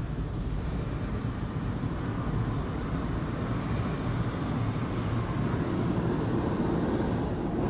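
WashTec SoftLine 2 car wash tunnel heard from inside the car: a steady rumble of water spray and machinery over the foamed car. It grows louder in the second half as the soft cloth brushes reach the car and start working over it.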